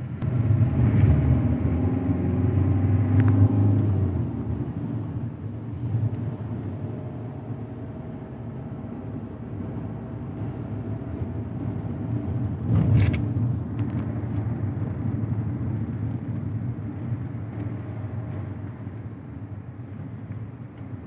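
Car engine and tyre rumble heard from inside the cabin of a moving car, louder for the first few seconds and then steady, with a brief thump about 13 seconds in.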